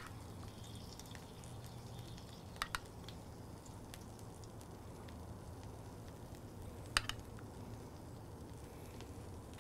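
Squeeze bottle of burger sauce being squeezed, giving a few small clicks and sputters: two close together about two and a half seconds in and a sharper one about seven seconds in. Under them runs a faint, steady low hum.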